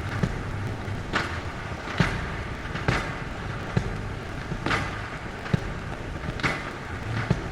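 Experimental ambient track made of a steady rushing hiss over a low hum, with a sharp click about once a second that keeps an even beat.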